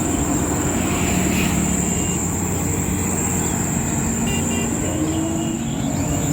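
Steady highway traffic noise: vehicle engines running and passing, with a thin steady high whine and a few faint short horn toots about four to five seconds in.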